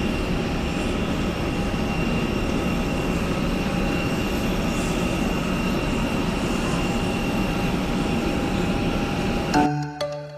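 Steady roar of an airliner's engines, with a few faint steady whining tones over the rumble. It cuts off abruptly near the end, and music with bell-like mallet notes begins.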